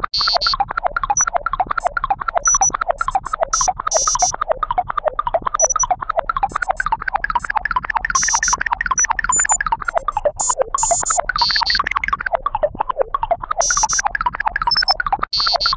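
A fast, continuous stream of electronic synthesizer bleeps, several short notes a second jumping up and down in pitch, with brief high chirps scattered over them. It breaks off for an instant just before the end.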